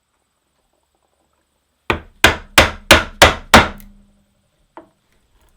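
Mallet driving a chisel into wood to chop a mortise: six quick blows, about three a second, beginning about two seconds in, then one lighter tap near the end.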